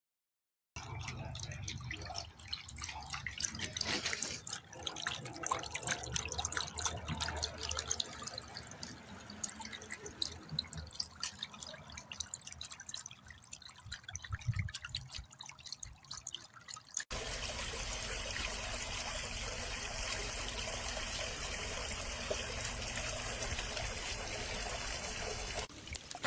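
Water splashing and trickling unevenly, then after a cut about seventeen seconds in, a steady even rush of running water.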